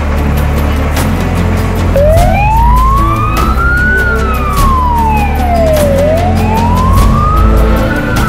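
Fire engine siren wailing. It starts about two seconds in, then slowly rises and falls in pitch, each sweep up or down taking about two seconds. Music plays underneath.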